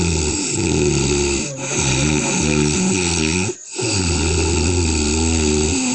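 A man snoring loudly, long snores back to back with short breaks about a second and a half in and again past three and a half seconds.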